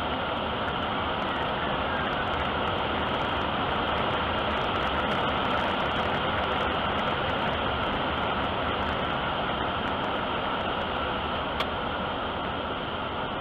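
Steady rush of airflow noise in the cockpit of a light aircraft gliding down with its engine failed, with one sharp click near the end.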